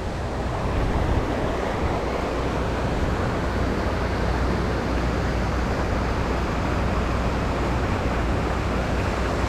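Steady rushing noise of flowing creek water, with a low rumble of wind on the microphone.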